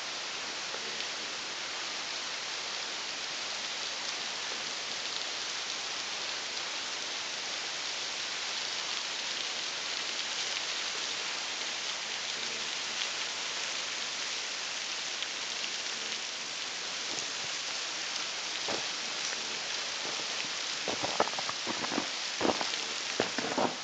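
Steady rushing hiss of a waterfall's falling water. A few short, sharp sounds break in near the end.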